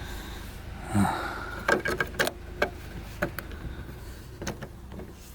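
Scattered light clicks and knocks of interior trim being handled and worked inside a car, with a short vocal sound about a second in.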